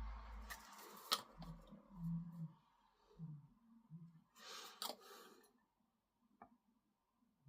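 Faint clicks and handling noises of small plastic model-kit parts and hobby tools being worked, with a sharper click about a second in and a short rustle of handling near the middle.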